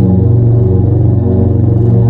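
Loud, low droning ambient electronic music: a few held low notes layered together with a fast, even throb.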